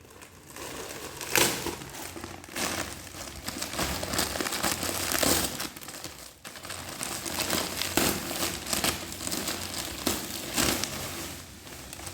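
Packaging crinkling and rustling in irregular bursts as a parcel is unwrapped by hand.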